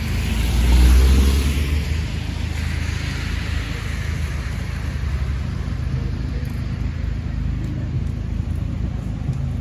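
A car passing close on a wet street, its tyres hissing, loudest about a second in and fading over the next few seconds, followed by a steady low rumble.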